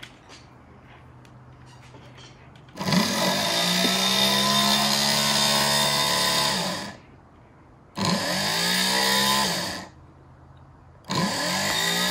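Rewound 6-volt Ford Model A horn, its motor-driven diaphragm sounding three blasts as it is tested on the bench: the rewound fields work. Each blast rises in pitch as the motor spins up and falls as it cuts off; the first lasts about four seconds, the second about two, and a third starts near the end.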